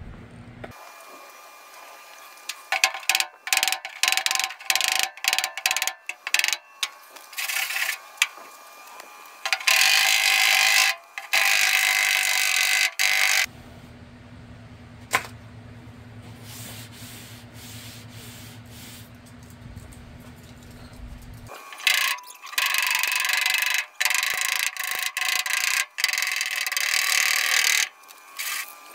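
Hand bodywork on the dented sheet-metal roof of a 1948 Willys truck: stroke after stroke of a tool scraping across the panel in bursts of a second or two, with short taps in between and the thin metal ringing. For several seconds in the middle a steady low hum runs alone.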